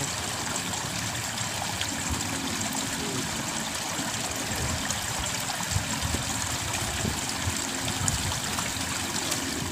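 Steady rush and trickle of water flowing in a small irrigation ditch.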